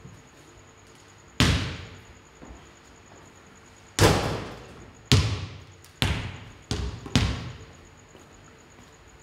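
A basketball bounced on a wooden floor six times at uneven intervals, once early and then five bounces in quicker succession, each ringing on in the echo of a large bare hall.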